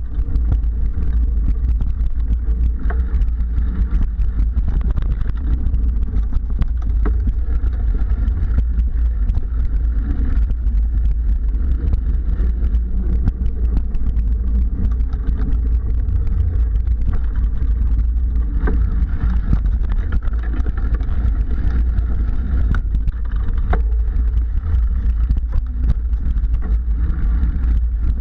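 A mountain bike rolling along a dirt singletrack, heard as a steady low rumble on the ride-mounted camera's microphone, with scattered clicks and rattles as it goes over bumps.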